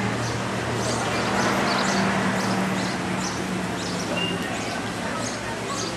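Small birds chirping in short, repeated calls, a few each second, over steady outdoor background noise with a low hum; the background swells for a couple of seconds about a second in.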